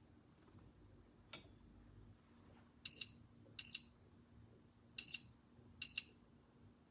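Electronic touch-control panel of a dual-zone wine and beverage fridge beeping four times as its temperature setting is pressed, each beep short and high-pitched.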